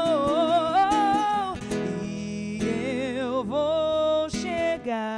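A woman singing a gospel song, holding long notes with vibrato, accompanied by acoustic guitar.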